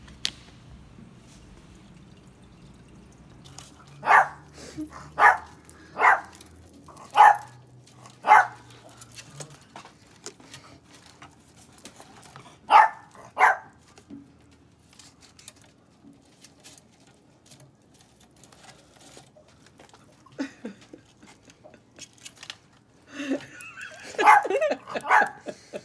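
A dog barking: five sharp barks about a second apart, then two more close together a few seconds later.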